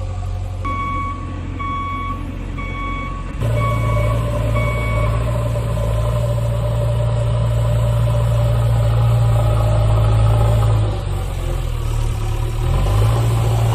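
Heavy vehicle engine running steadily with a reversing alarm beeping about once a second for the first few seconds; the engine grows louder about three seconds in and eases off near the end. The picture shows plastic toys, so this is an added engine sound effect.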